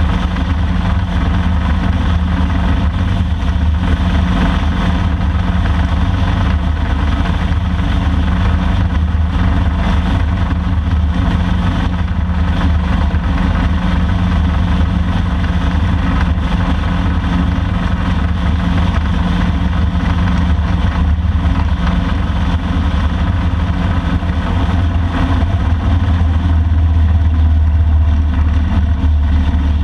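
Touring motorcycle engine running steadily while cruising on the highway, under steady wind and road noise. The low engine note grows a little louder near the end.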